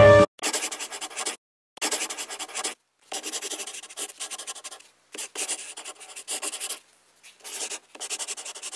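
Felt-tip marker drawing on paper: quick, scratchy strokes in bursts of about a second, with short pauses between them.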